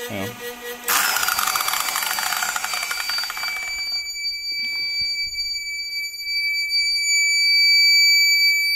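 A 900 W circular saw's motor kicks on about a second in and dies away over a few seconds because the 2000 W pure sine wave inverter cannot power it. The inverter's alarm buzzer starts at the same moment and keeps sounding one steady high-pitched beep: an overload warning.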